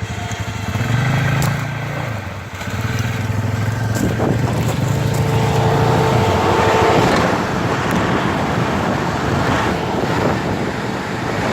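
ATV engine revving in surges while an electric winch whines steadily, the machine being winched out of where it is stuck. A rushing, churning noise swells around the middle.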